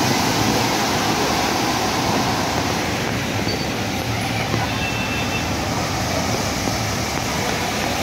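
Tata goods truck driving through deep floodwater, its wheels churning up a heavy wash of water that is loudest at the start and eases off as it moves away, leaving a steady rush of water and traffic.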